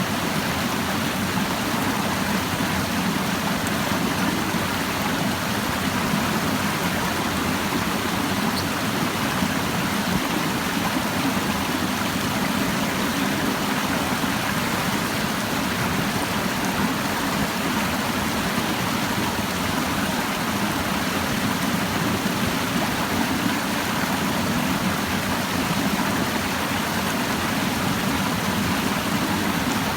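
Clear stream babbling steadily over rocks, an even rush of flowing water.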